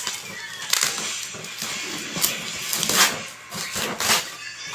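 Unpacked items and their packaging being handled: a series of irregular rustles and clicks, the loudest about three seconds in.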